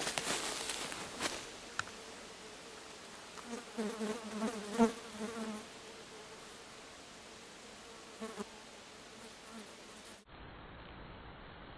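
A flying insect buzzing close by, coming and going, loudest a little before the middle with a brief return later. Brush rustles underfoot at the start.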